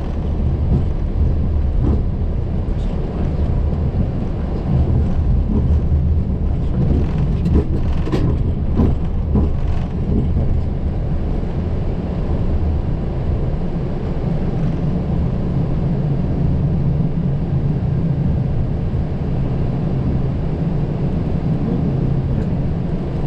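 Boeing 737-800 flight deck during taxi: a steady low rumble of its CFM56 engines at taxi power and the aircraft rolling along the taxiway, with a few light clicks about eight to ten seconds in.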